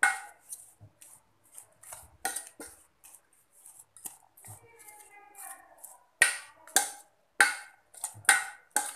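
A spoon scraping against a bowl while stirring soaked flattened rice (aval) with grated coconut and palm jaggery. It makes short repeated scraping strokes, which grow louder and come about two a second over the last three seconds.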